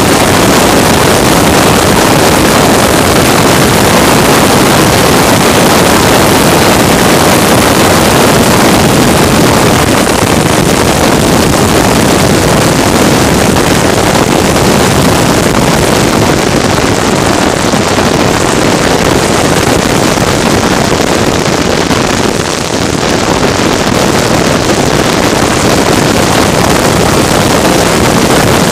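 Loud, steady rush of wind on the microphone mixed with a racing vehicle's engine running at speed, with a brief dip in level about 22 seconds in.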